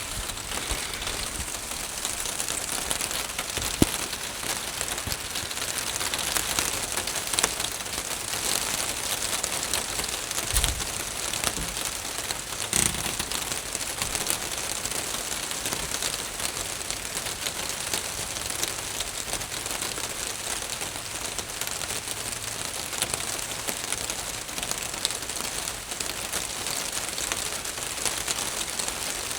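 Steady rain pattering on a roof: a dense even hiss of drops with scattered sharper ticks, and a few louder single knocks of heavier drops.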